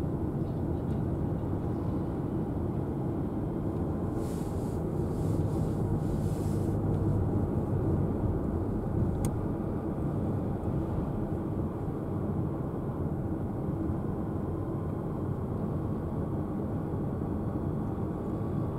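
Steady road and engine noise inside a moving car's cabin: a low rumble of tyres and engine. A hiss swells briefly about four seconds in, and there is one faint tick just after nine seconds.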